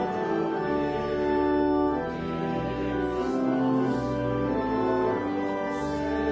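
Church organ playing slow, held chords over a deep bass line, the chords changing every second or two.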